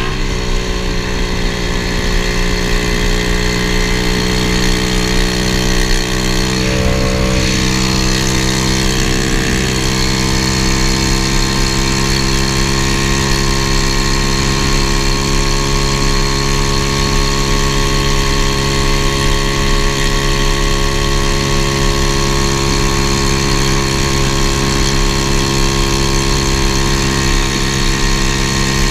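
125cc pit-bike engine in a Honda ATC70 mini three-wheeler running steadily while riding along at cruising speed, with a short shift in its pitch about seven seconds in.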